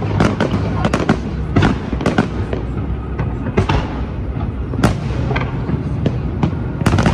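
Fireworks display: shells bursting overhead in a rapid, irregular series of loud bangs and crackles, with especially sharp cracks about five and seven seconds in.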